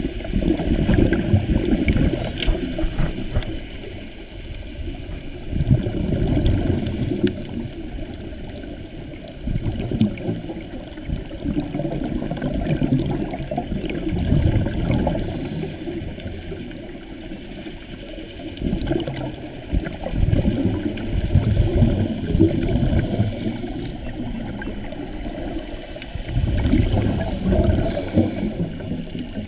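Muffled underwater noise through a camera housing: low rumbling surges of bubbles and water swelling and fading every few seconds, from a scuba diver's exhaled breaths.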